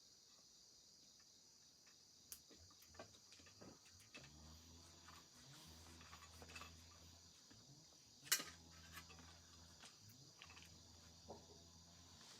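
Faint, steady chirring of crickets at night. Scattered light clicks, with a sharper click about eight seconds in, and a low hum that comes and goes from about four seconds in.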